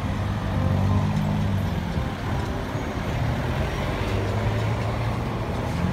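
Street traffic: a light flatbed truck and cars driving past, with a steady low engine hum over road noise.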